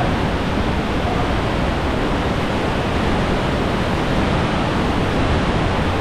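Loud, steady rush of a waterfall plunging down a narrow gorge.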